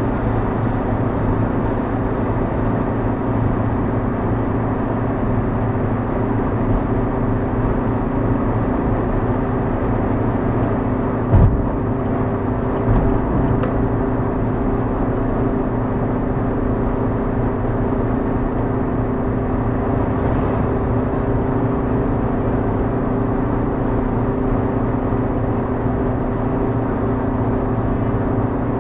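Fiat Uno Economy cruising at highway speed, heard inside the cabin: a steady engine drone over tyre and road noise. There is one short thump about eleven seconds in.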